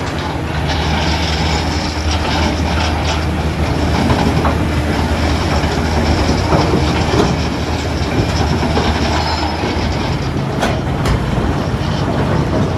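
A heavy diesel engine running steadily, with a dense rattling clatter and a couple of sharp knocks near the end.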